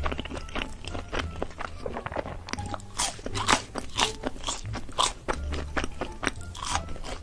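Close-up eating sounds: crunchy food being bitten and chewed, a quick run of sharp crunches and crackles that grows louder about two and a half seconds in.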